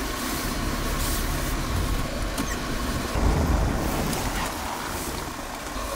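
1997 Land Rover Defender driving on a snowy road, heard from inside the cab: a steady low rumble of engine and road noise, with a brief louder surge about three seconds in.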